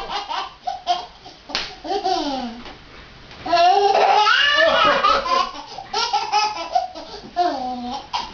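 Toddler laughing hard in repeated bursts of high-pitched giggles, loudest about three and a half seconds in and again around six seconds in, with quieter breaths and giggles between.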